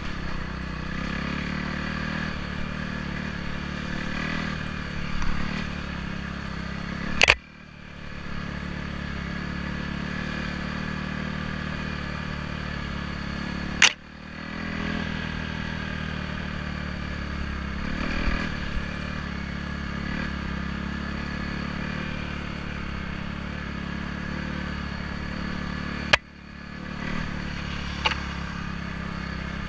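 Trail bike engine running steadily while riding. Three sharp knocks break in, each followed by a sudden brief dip in the sound.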